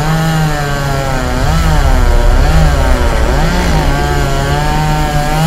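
Chainsaw engine revving, its pitch dipping and rising again several times.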